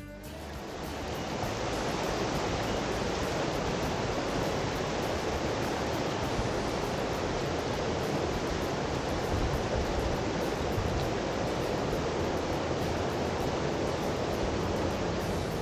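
Shallow mountain river rushing over rocks and a low weir: a steady rush of water that swells in over the first second or two and then holds even.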